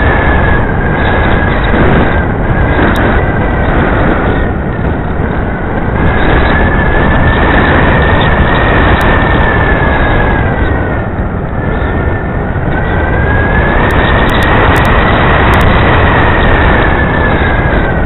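Radio-controlled model aircraft's motor and propeller whining, heard from the onboard camera's microphone along with heavy wind rush. The whine's pitch sags about two-thirds of the way through, then rises again as the throttle comes back up.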